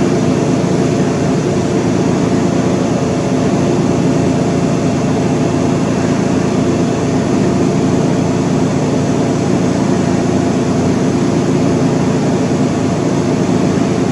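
An electric fan running steadily: a constant whir with a low motor hum that does not change.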